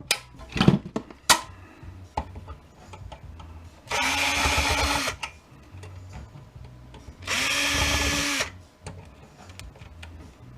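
Power drill/driver motor running in two steady bursts of about a second each, working on flathead screws in a metal electrical box. Small handling clicks and knocks come between the bursts.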